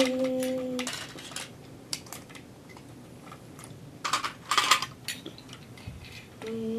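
Toy construction vehicles and pieces clicking and clattering against each other as they are handled, with a louder burst of rattling about four seconds in. A held steady tone stops about a second in.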